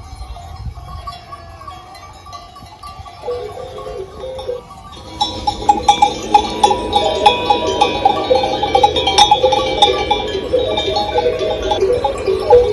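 Bells worn by grazing sheep clanking and jingling, getting much louder and busier from about five seconds in.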